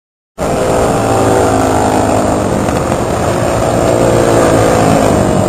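Racing kart's Honda GX single-cylinder four-stroke engine running at a steady pitch, cutting in abruptly just under half a second in.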